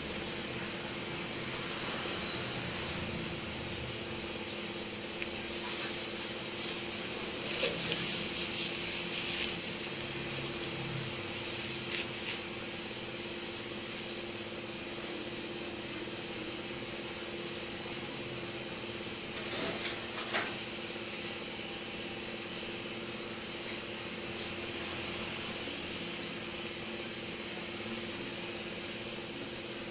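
Steady hiss with a low hum, broken by a few short rustles and clicks about a quarter of the way in and again past the middle.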